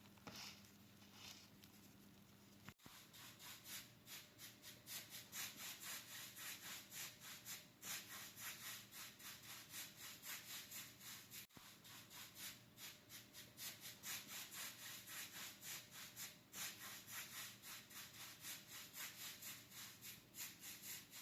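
Faint, steady brush strokes, about three a second, of a paintbrush spreading matte acrylic varnish over a rough faux-stone fireplace finish.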